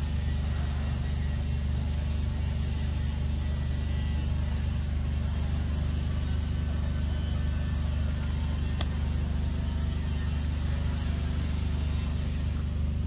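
Steady low rumble, with a single sharp click about nine seconds in.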